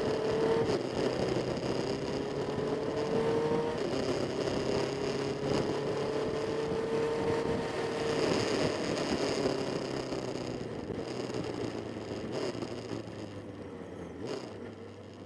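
Motorcycle engine accelerating through the gears: its note rises in long pulls and drops back at each shift, about three times, then fades away over the last few seconds.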